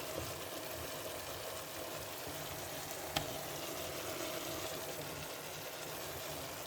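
Kefta (minced meat) stuffing cooking in oil in a pan, a steady sizzle, with a single sharp click about three seconds in.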